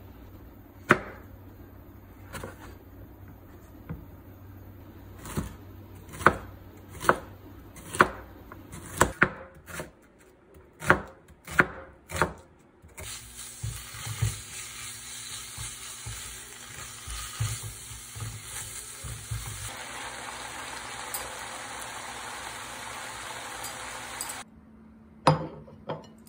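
Knife chopping on a wooden cutting board, single sharp chops about one a second. About halfway through, strips of soy-marinated beef start sizzling in a nonstick frying pan as a silicone spatula stirs them; the sizzle grows louder later on and cuts off suddenly near the end.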